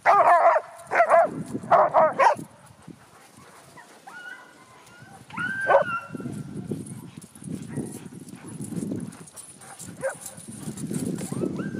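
Sled-dog huskies barking excitedly, several loud barks in the first two seconds, then a single high yelp about halfway through. After that a rough swishing noise in pulses as a dog sled runs past over the snow.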